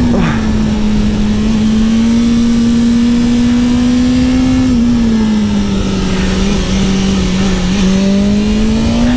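BMW S 1000 RR's inline-four engine running at high revs on track, its pitch holding fairly steady, dipping a little about halfway through and climbing again near the end, with wind rush underneath.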